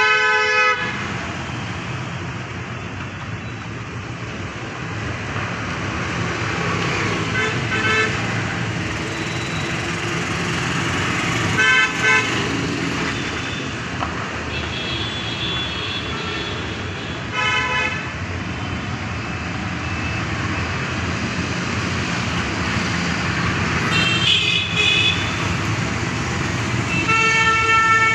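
Street traffic at a city junction: scooters, motorcycles and cars passing with a steady engine and tyre hum, and short horn toots about six times.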